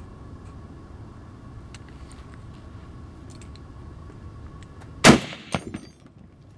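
A single shot from a Barrett .50 BMG rifle about five seconds in: a very loud sharp crack with a short rumbling tail. A fainter second crack follows about half a second later, and only steady low background noise comes before the shot.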